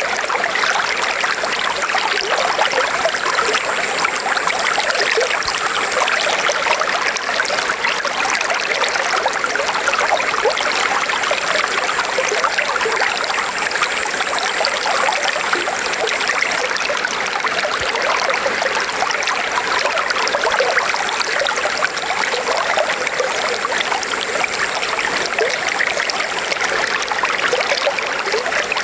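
A river flowing steadily over rocks, with a constant splashing and babbling of water.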